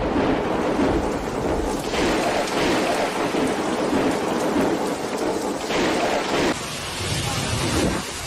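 Torrential rain pouring down in a storm-force wind, with a deep rumble under the rain. The storm noise drops a little about six and a half seconds in.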